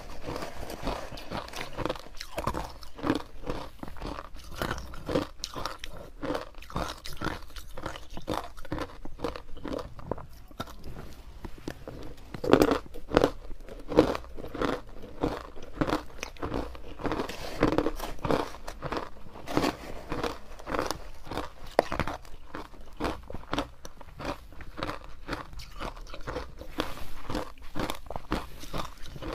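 Frozen ice chunks coated in matcha powder being bitten and chewed up close, a steady run of crisp crunches that are loudest about halfway through.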